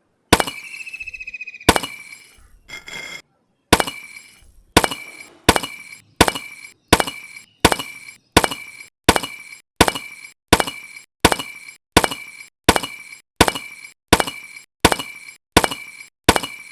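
Hard object struck again and again, giving sharp, ringing metallic clinks. After two strikes and a short scrape, a steady run of about eighteen clinks follows, roughly one every 0.7 s.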